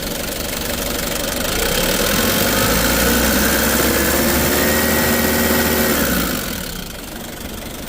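Diesel engine of a Nissan 2.5-ton forklift running; it is revved up about two seconds in, held steady at the higher speed, then let back down towards idle near the end.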